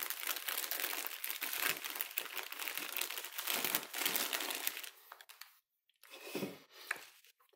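Packaging crinkling as it is handled for about five seconds, then stopping, with a shorter rustle near the end.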